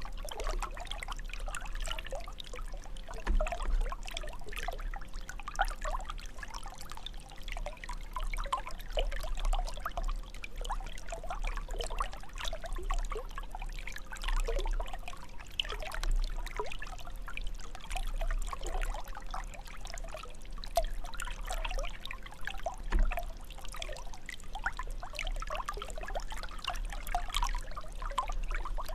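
Water jet of a fountain splashing and trickling into its basin, a continuous irregular patter of small splashes.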